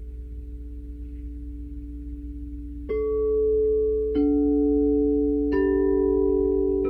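Crystal singing bowls ringing with long, steady tones. Four bowls are struck one after another, about a second and a half apart, and each adds a new pitch over the tones still sounding.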